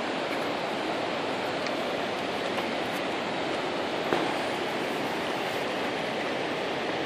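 Fast-flowing river rushing over rapids: a steady, even rush of water, with a single small click about four seconds in.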